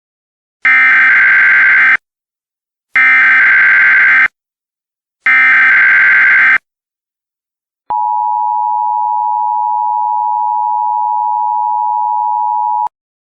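Emergency Alert System header: three bursts of SAME digital data tones, each just over a second long with about a second between them. After a short gap comes the steady two-tone EAS attention signal, held for about five seconds before it cuts off. It announces that an emergency bulletin follows.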